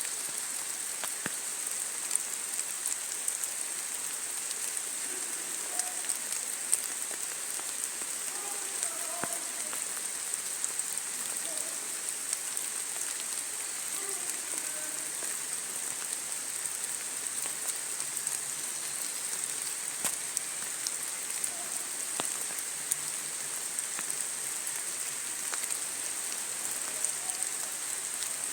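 Steady rain falling: an even hiss with many scattered sharp drop ticks.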